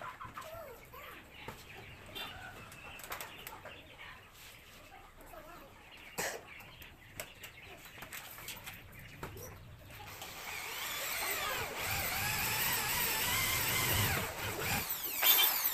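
Light handling clicks and taps, then a corded electric drill runs for about five seconds near the end, its whine wavering in pitch as it drills into the flight case.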